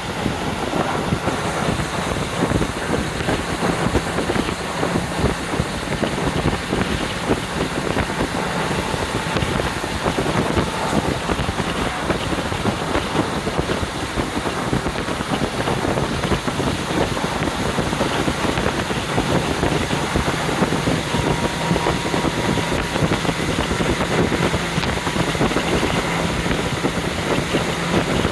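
Wind rushing in through the open window of a KiHa 40 diesel railcar under way, over the railcar's diesel engine running with a steady low hum.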